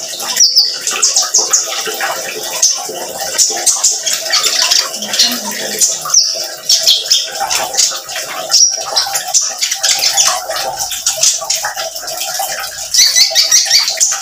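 Caged male sunbird (konin) singing: repeated bursts of fast, high-pitched twittering, the strongest phrase about a second before the end.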